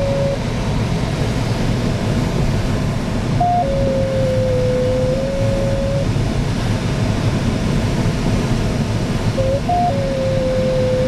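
Steady rush of air around the canopy of a Cirrus 75 sailplane in gliding flight. Over it the audio variometer sounds a held tone that wavers slightly in pitch, coming in twice after a short higher note, about three and a half seconds in and again near the end.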